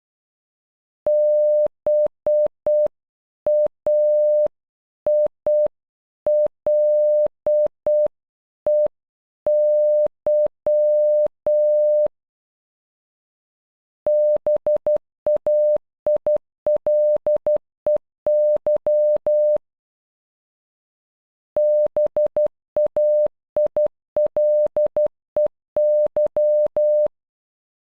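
Morse code tone, one steady beep pitch keyed on and off, spelling BAILEY (-... .- .. .-.. . -.--). It plays once slowly at half speed, then, after a short pause, twice at normal speed with shorter, quicker dots and dashes.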